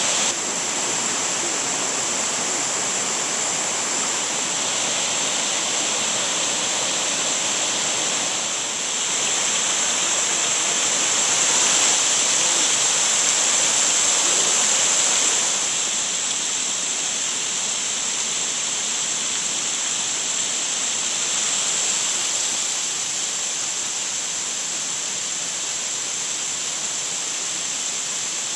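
Shiraito Falls, a wide curtain of water falling in many thin streams over a rock face, rushing steadily. It grows louder for several seconds in the middle.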